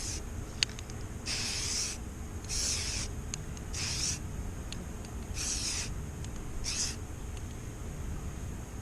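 Aerosol spray paint can hissing in short bursts, about five of them a second or so apart, with small clicks between: white paint misted over black-painted miniatures.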